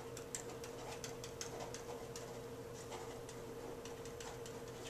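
A pen tip tapping and clicking on a whiteboard as words are written by hand: many light, irregular ticks over a steady low hum.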